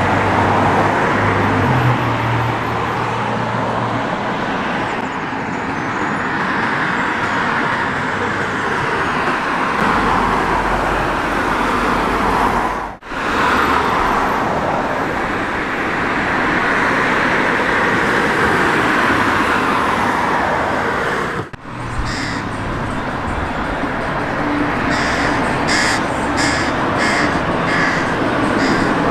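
Steady road traffic noise that swells and fades, dropping out briefly twice. Near the end a crow calls in a quick run of short, harsh caws.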